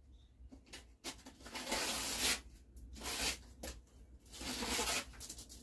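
Rotten plywood ceiling being pulled and torn away by hand, in three short tearing bursts.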